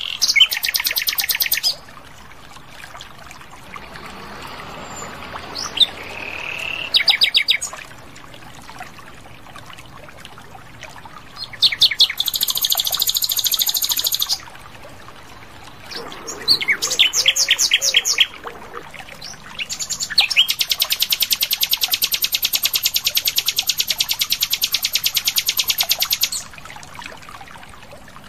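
Common nightingale singing: five separate phrases of fast repeated high notes with pauses between them, one including a short rising whistle, and the last a long rapid run of repeated notes lasting about six seconds.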